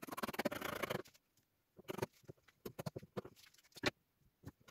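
Scissors cutting through 160 gram twill carbon fiber fabric. A dense run of cutting fills the first second, followed by scattered short snips and crackles.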